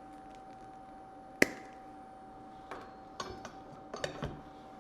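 Wire cutters snipping stainless-steel welding wire with one sharp snap, followed by a few light metallic clicks and rattles of tool handling, over a steady thin hum.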